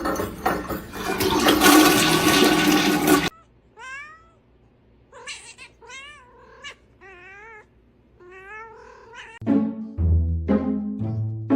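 A toilet flushing loudly, cut off abruptly after about three seconds. Then a cat meows about five times in wavering, rising-and-falling calls.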